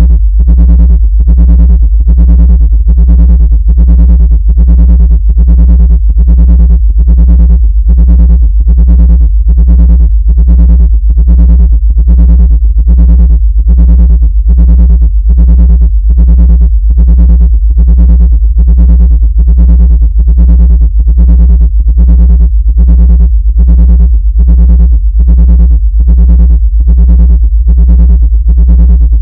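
Loud synthesized deep bass tone pulsing about twice a second, an electronic track sold as a frequency to drive ants out of a laptop.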